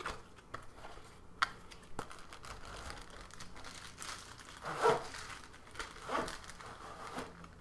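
Plastic wrapping crinkling and cardboard rustling as a bagged photo umbrella is slid out of a long cardboard box, with a few sharp taps of the box being handled.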